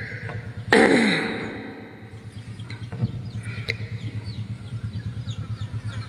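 A short, loud throaty vocal sound from a person about a second in, falling in pitch like a cough or clearing of the throat, then a low hum pulsing about four times a second with faint high chirps.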